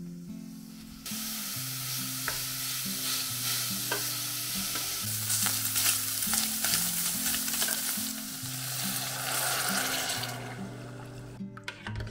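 Ground pork sizzling and frying in a stainless steel pot as it is stirred and browned with a wooden spoon. The sizzle starts about a second in and stops near the end.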